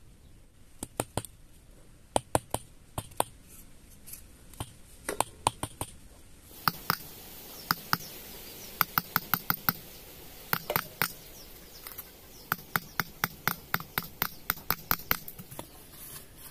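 Sharp clicks and taps, a few single ones at first, then mostly in quick runs of several. A light steady hiss joins about six and a half seconds in.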